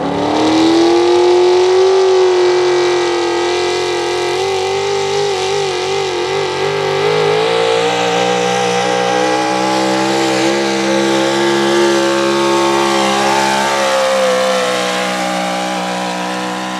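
Big-block V8 pulling truck at full throttle dragging a weight-transfer sled: the engine climbs in revs over the first second, then holds high and steady, wavering slightly, through the pull.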